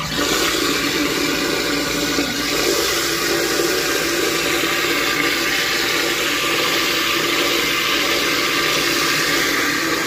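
Garbage disposal running steadily, grinding ice cubes with tap water trickling in. The ice churns to a slush that scours grease and gunk from a slow, sluggish disposal.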